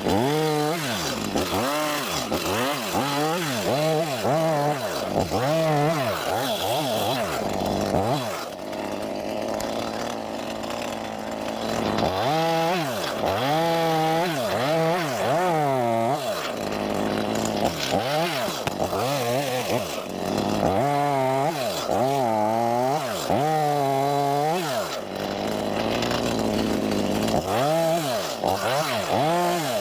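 Stihl chainsaw cutting up a felled pin oak for firewood, its pitch rising and falling over and over as the throttle is worked and the chain bites into the wood. There are a couple of steadier, quieter stretches between cuts.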